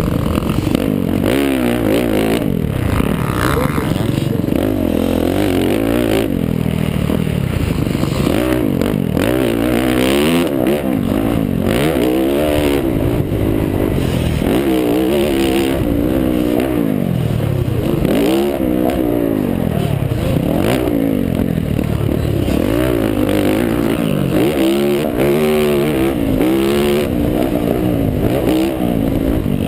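Yamaha YZ450F's single-cylinder four-stroke engine revving up and falling off again and again as the rider accelerates, shifts and rolls off around a motocross track, heard from an on-board camera.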